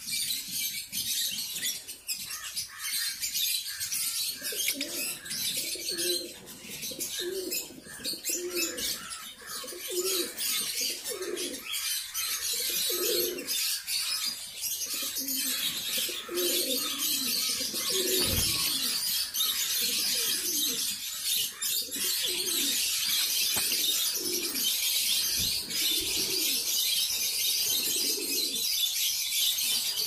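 A flock of caged Fischer's and masked lovebirds chattering, a dense run of shrill twittering. Underneath, from a few seconds in, a lower call repeats about once a second.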